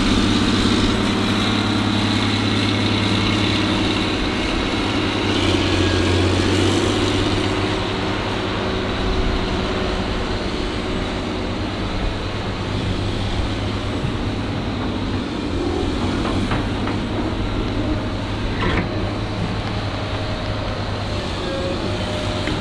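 Diesel engine of a tracked excavator running steadily at working throttle, with the low engine note swelling for a couple of seconds about a fifth of the way in.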